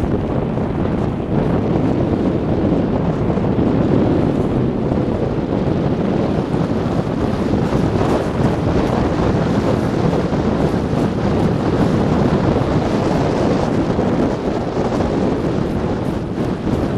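Steady wind noise on the microphone of a camera riding a fast wooden sled, mixed with the sled's runners running over packed snow.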